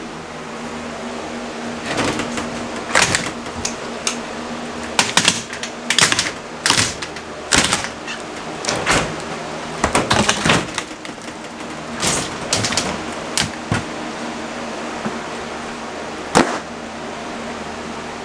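Wooden wall framing being pulled and knocked loose by hand: a string of irregular sharp knocks and cracks of wood over the steady hum of a box fan.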